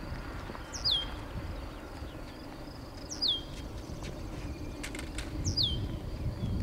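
A bird calling three times, each call a short high whistle that slides down in pitch, about every two and a half seconds, over a low steady background rumble.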